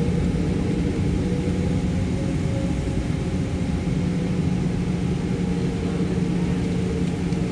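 Cabin noise inside a Boeing 777-200ER as it taxis: a steady low hum of engines and air systems with a couple of held tones.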